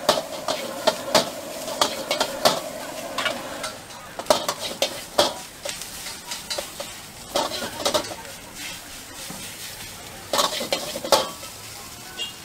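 A metal ladle clanks and scrapes against a wok at an irregular pace while rice is stir-fried, over the sizzle of frying. The sizzle is strongest in the first few seconds, and the loudest ladle knocks come near the end.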